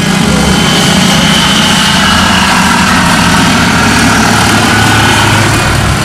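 Aircraft engine droning steadily.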